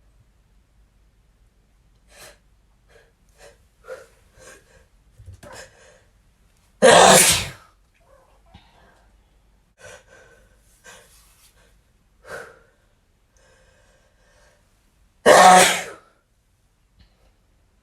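A man sneezes twice, loudly, about eight seconds apart, with short, quieter gasping breaths leading up to each sneeze.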